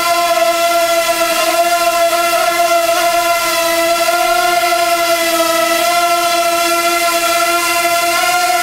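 Wingsland S6 pocket quadcopter hovering, its propellers giving a steady high whine that wavers slightly in pitch.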